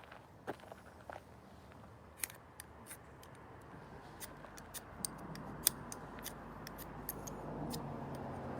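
Wood fire crackling with sharp, irregular snaps and pops; a steady rushing noise grows louder from about halfway through.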